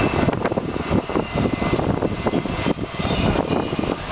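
Steady loud roar of running industrial machinery, with faint steady high tones above it.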